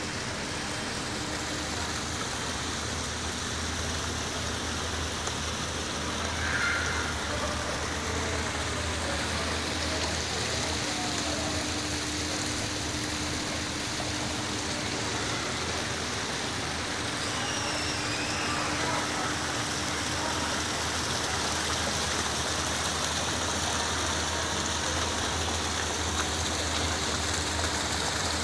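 Steady rushing and splashing of water from an artificial rock waterfall, with a steady low hum underneath.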